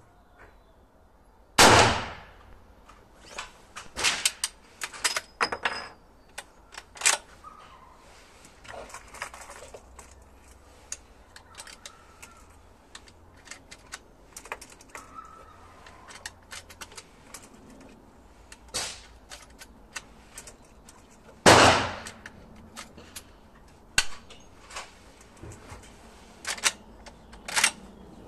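Winchester Model 1892 lever-action rifle in .44-40 fired twice, about twenty seconds apart, each shot with a short echo. Between the shots come many sharp clicks and clacks as the rifle is handled and reloaded.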